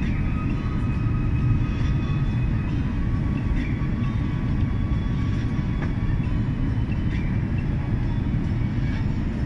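Airliner cabin noise heard from a window seat during the approach: a steady, even low hum of the jet engines and rushing air.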